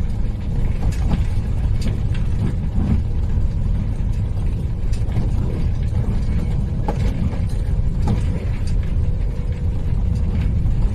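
Motorhome driving over a rough, broken road: a steady low road rumble with scattered knocks and rattles as the body jolts over the bumps.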